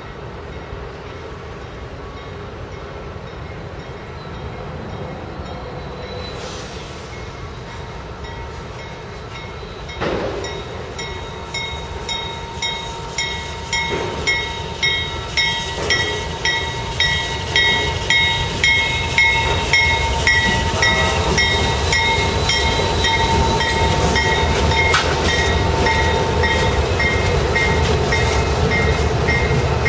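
CSX freight train led by several diesel locomotives approaching and passing close by. The locomotives grow steadily louder, jumping up about a third of the way in. A regular pulse of about two beats a second follows for some ten seconds, then a steady loud rumble as the locomotives and the intermodal cars go by.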